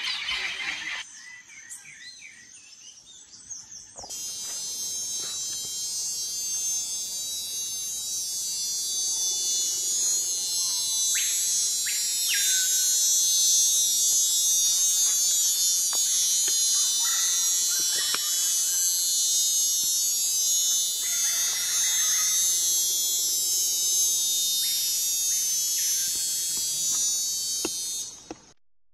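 Insects in tropical forest: a loud, dense, steady high-pitched buzzing that starts suddenly about four seconds in and stops just before the end, with a few short calls over it.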